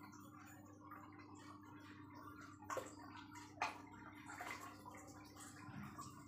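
Aquarium air stone bubbling, a fine patter of small bubble pops over the steady low hum of the tank's pump. Two short sharp clicks come about a second apart near the middle.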